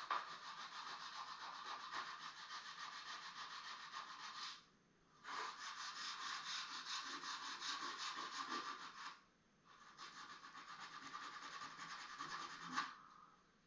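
Hand sanding an old wooden fireplace mantle with a small sanding block to take off old paint: quick back-and-forth scrubbing strokes in three spells, with short pauses about four and a half and nine and a half seconds in.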